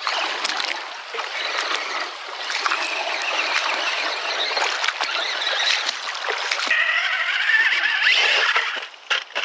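Water splashing and a shallow creek running as a 1/10-scale RC crawler truck wades through it. About seven seconds in the sound changes abruptly to a higher, wavering whine, then thins out to a few scattered clicks near the end.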